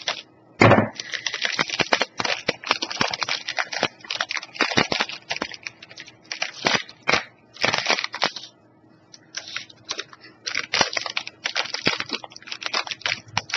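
A plastic snack wrapper crinkling and rustling in irregular bursts as it is handled and opened, with a thump about half a second in.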